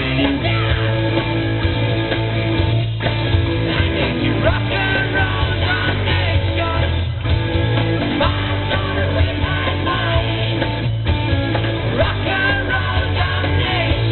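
Live rock band playing a song: a man singing into a handheld mic over electric guitars and a drum kit, with a brief break in the band roughly every four seconds.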